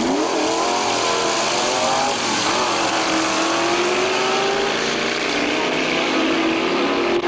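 Two Ford Falcon drag cars, one powered by a 351 Cleveland V8, launching hard off the start line and accelerating at full throttle down the strip. The engine pitch climbs steeply at the launch, dips about two seconds in, then climbs again.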